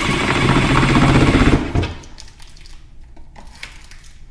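Compact cordless screwdriver running in one fast, rattling burst of just under two seconds, driving a small screw through a metal outlet plate into soft wood without a pilot hole, then stopping.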